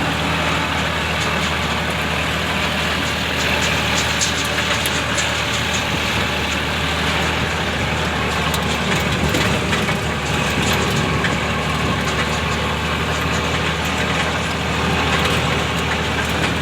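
A motor vehicle's engine running steadily at an even pitch, without revving up or down.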